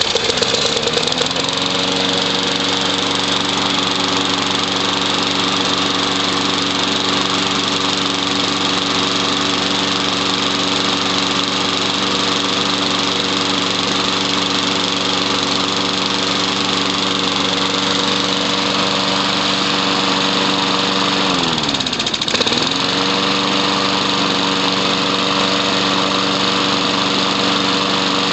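Weed Eater push mower's Briggs & Stratton single-cylinder engine running steadily, its pitch rising as it comes up to speed in the first couple of seconds. About 21 seconds in its speed drops sharply and picks back up within about a second.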